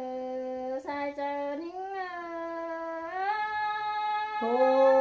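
Unaccompanied folk singing: one voice holding long, drawn-out notes that slide from one pitch to the next. It steps down to a lower, louder held note about four and a half seconds in.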